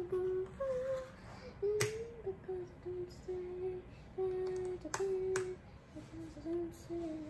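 A girl humming a slow tune to herself in short held notes, with a few sharp clicks of plastic Lego pieces being handled, the first about two seconds in and two more close together about five seconds in.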